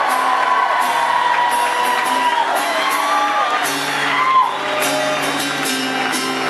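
Live band music playing loudly on stage, with a voice whooping and singing over it.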